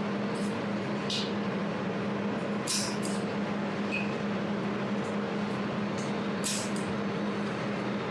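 Jewelry laser welding machine running with a steady low hum from its cooling system, broken by several short, sharp hissy snaps at irregular intervals as laser pulses fire on the workpiece.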